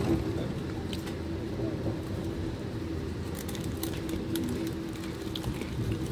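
Running noise heard inside a moving Amtrak Silver Meteor passenger coach: a steady low rumble with a steady hum and a few scattered clicks and rattles.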